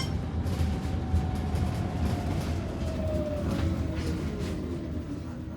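G5 electric school bus's drive motor whining, the pitch falling steadily as the bus slows, over a steady low road rumble.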